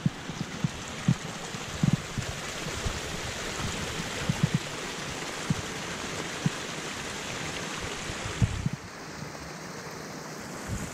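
Small rain-swollen forest creek rushing and splashing down a little cascade over rocks, a steady rush of water. Scattered low thumps sound through it, and the hiss of the water gets softer about nine seconds in.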